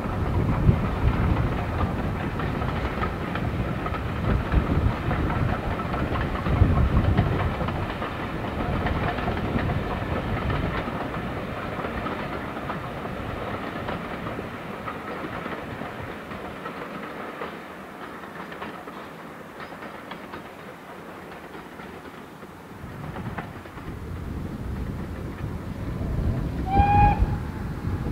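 Steam-hauled train passing at a distance, a rumbling run of wheels and working engine that fades away past the middle. Near the end a short, shrill pitched call cuts through.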